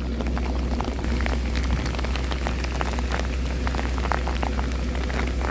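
Heavy rain falling, with many sharp drops tapping close by, over a steady low rumble.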